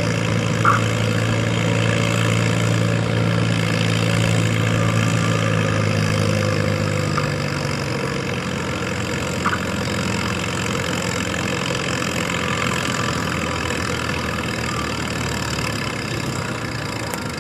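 Farm tractor engine idling steadily, its low drone fading away about seven seconds in.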